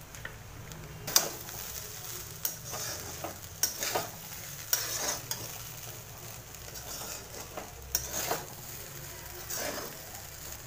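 A metal spatula scraping and turning fried rice in a metal kadhai, in irregular strokes about once a second, over a low sizzle of the rice frying on a low flame.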